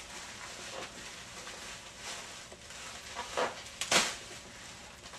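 Handling noise as a shoulder puppet and its packaging are moved about: soft rustling throughout, with two louder quick swishes about three and a half and four seconds in.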